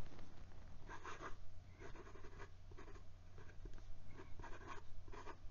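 Fountain pen writing on notebook paper: the fine steel nib of a Jinhao Centennial making short, irregular scratching strokes. The nib gives a good amount of feedback without being scratchy.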